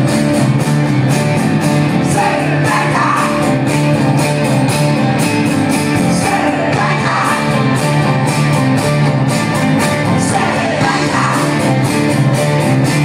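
Live rock band playing at a steady beat: acoustic and electric guitars, bass guitar and drums, with a voice singing at times over the band, heard from within the crowd.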